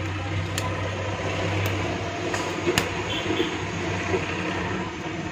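A few sharp snips and clicks of hand cutters trimming the plastic side of a car stereo faceplate, over a steady background hum and rumble that eases about halfway through.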